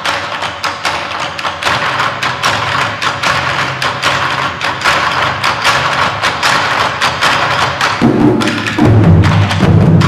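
A large ensemble of Chinese drums played with sticks: a fast, dense run of strokes that builds steadily, with deep, full drum strokes joining about eight seconds in and getting louder.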